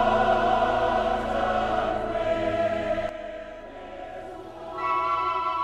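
Choir singing long held chords over instrumental accompaniment; about three seconds in the music drops quieter, and near the end a new, brighter chord comes in.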